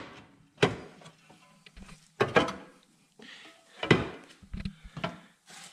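A loose steel inner-structure body panel knocking and clattering against the car's body as it is set into place by hand, with several sharp metal knocks.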